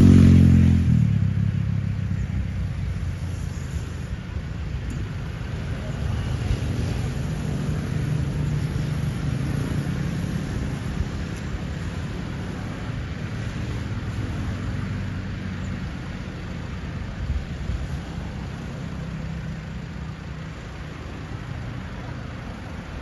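A motor vehicle, likely a motorcycle, passes close and loud at the start and fades within about a second, followed by a steady low engine rumble that runs on and eases slightly near the end.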